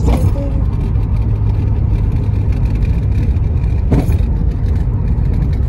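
Car driving, heard from inside the cabin: a steady low rumble of engine and road noise, with a brief click right at the start and another about four seconds in.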